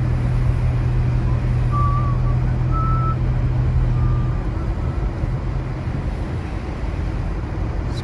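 Car driving slowly over wet, slushy pavement, heard from inside the cabin: steady engine and tyre noise, with a low hum that drops away about four seconds in.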